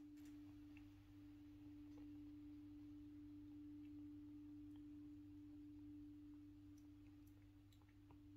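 Faint steady pure tone at one unchanging pitch, with a low hum beneath, over near silence.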